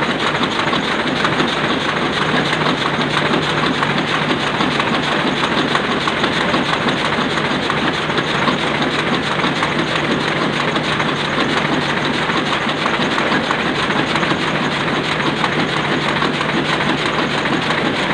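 Sakurai Oliver 66 sheet-fed offset printing press running steadily: a continuous rapid mechanical clatter over a constant low hum.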